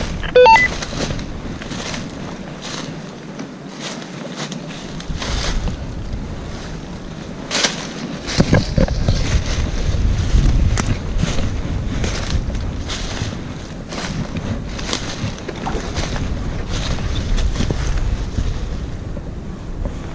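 Wind buffeting the microphone: a low rumble that gets louder from about eight seconds in, with many short rustles and clicks mixed through it.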